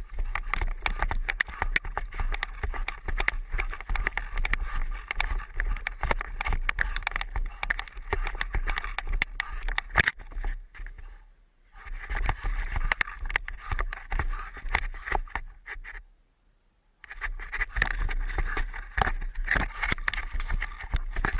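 Handling noise from a camera fixed to a stick that a dog is carrying in its mouth: dense rattling, scraping and knocking as the stick jolts while the dog moves through snow. The noise fades out briefly just past halfway and again for about a second later on.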